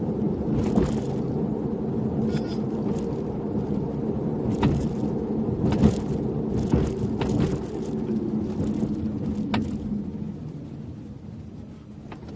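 Car cabin road noise while driving, broken by several scattered sharp clicks and rattles from the luggage partition net and tonneau cover area: the abnormal noise that is set off when the car crosses steps at road and bridge joints.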